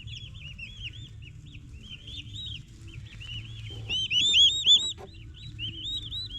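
A group of baby turkey poults peeping: many short, high, arching peeps overlapping in quick succession, loudest about four to five seconds in.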